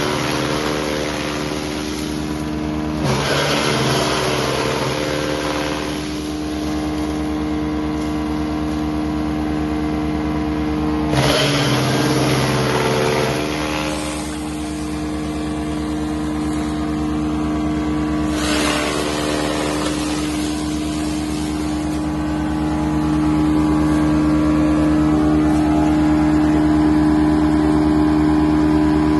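Kubota tractor engine running at a steady speed, driving a PTO-mounted wood chipper/shredder, with three bursts of chipping noise a few seconds long as material goes through; the sound grows louder in the last third.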